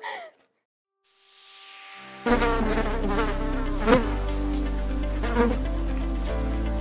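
A fly buzzing, loud and steady with small swoops in pitch. It comes in abruptly about two seconds in, after a faint rising hiss.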